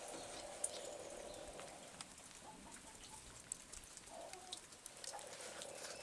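Faint clucking of chickens, with a few light clicks.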